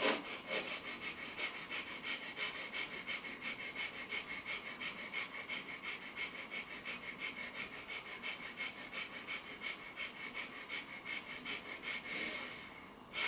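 Breath of fire: rapid, forceful breathing in and out through the nose, the belly contracting on each breath, at about three breaths a second. Near the end the rhythm gives way to one longer, deeper breath.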